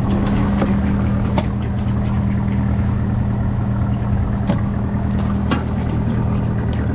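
Fishing boat's engine running steadily, with a few sharp knocks and clicks scattered through.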